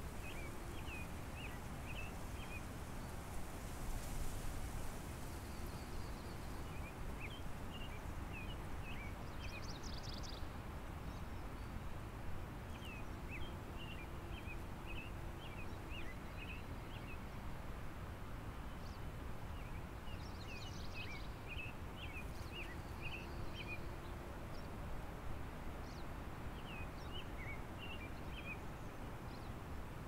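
Steady rushing of a river in the background, with bouts of short, high chirping from a small bird every few seconds.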